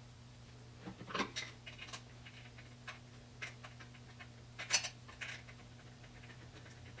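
Scattered small clicks and taps of bolts being started by hand on a Triumph TR6's front bumper support brackets, the loudest about two-thirds of the way through, over a faint steady hum.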